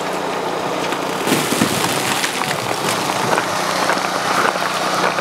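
A steady low engine hum, joined about a second in by irregular crunching and crackling: footsteps and movement on snow-covered lake ice.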